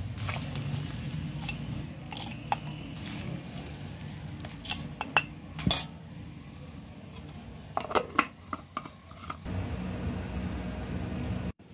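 Metal spoon clinking and scraping against a steel bowl as whole coriander seeds, cumin seeds and dried red chillies are scooped into a spice-grinder jar. A cluster of clinks comes about halfway and another a little later, over a steady low hum.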